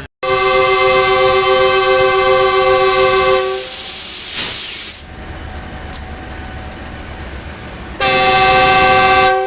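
Horn of a GEU-20 diesel-electric locomotive pulling out with a passenger train: one long blast of about three seconds, then a shorter blast about a second long near the end, with the engine's low rumble in between.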